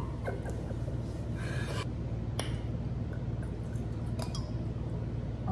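A wine glass being handled and sipped from: a few light clicks and a brief soft liquid sound, over a steady low hum.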